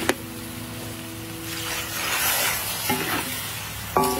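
Chicken feet sizzling in a large metal pan while a metal spatula scrapes and turns them. The spatula knocks against the pan just after the start and again near the end, and each knock leaves the pan ringing.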